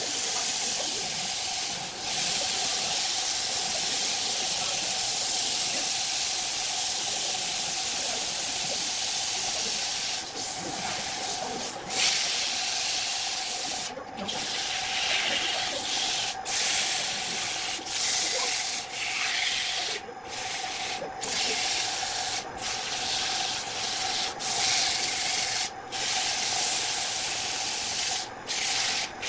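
Sandpaper held by hand against a large wooden vase blank spinning on a wood lathe: a steady rubbing hiss over the lathe's steady running tone. The hiss briefly breaks off several times in the second half.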